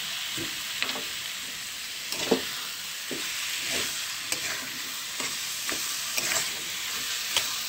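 Mashed olive chutney with spices and sugar frying in mustard oil in a metal kadai, with a steady sizzle, while a metal spatula stirs it, scraping and knocking against the pan every second or so.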